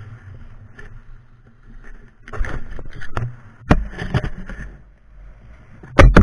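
Skis sliding and scraping over packed, tracked snow, a low steady rush at first that turns louder and rougher about two seconds in. Sharp knocks cut through it, the loudest near the end.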